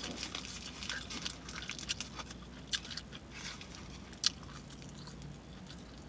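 A person chewing a mouthful of breakfast crepe close to the microphone: wet smacking and clicking mouth sounds, irregular, with a few louder smacks.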